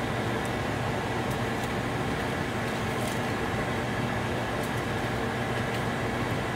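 Steady mechanical hum and hiss, with a few faint ticks.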